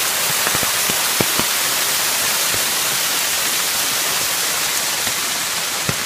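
Chisuji Falls, a low, spring-fed cascade of many thin threads of water, pouring down a rock face and splashing into its pool with a steady hiss. A few sharp, louder drips stand out in the first second and a half.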